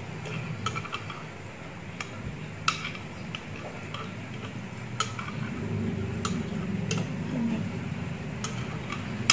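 Metal spoon clinking and scraping against a glass blender jar and stemmed glasses while scooping out thick smoothie: light, irregular clinks about once a second over a low steady hum.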